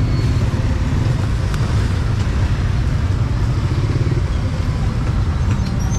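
Steady low rumble of city street traffic, motorbikes and cars running past.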